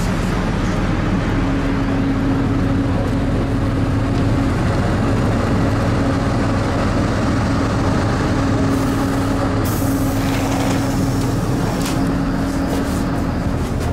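DR-series diesel multiple unit standing with its diesel engine idling: a steady low hum with a held whine that drops out briefly now and then, and a short hiss about nine seconds in.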